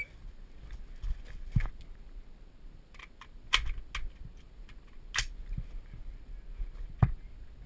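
Irregular sharp clicks and knocks of a rifle and shooting gear being handled, about seven in all, the loudest about halfway through and near the end.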